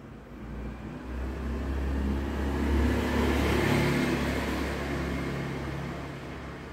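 A motor vehicle passing by, its engine and road noise swelling to a peak about three to four seconds in and then fading away.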